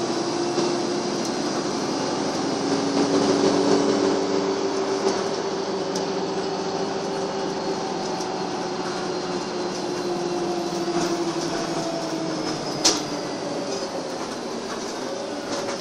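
Karosa B941E articulated city bus heard from inside the passenger cabin while driving: a steady drone of engine, drivetrain and road noise with a faint whine that slowly drifts in pitch. One sharp click about thirteen seconds in.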